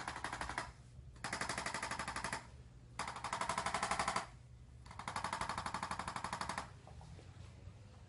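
Handheld electric percussion instrument firing rapid, evenly spaced taps in bursts: one ends just after the start, then three more bursts of about one to one and a half seconds, with short pauses between them.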